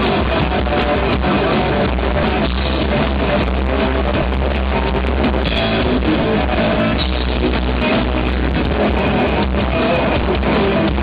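Rock band playing live: electric guitar over a drum kit, loud and steady.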